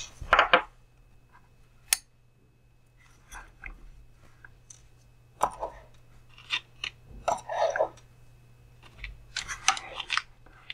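Hand tools and small plastic and metal parts being handled on a wooden workbench. There are scattered light clicks, taps and rustles, a sharp click about two seconds in, and busier handling in the second half. Tweezers are picked up near the end.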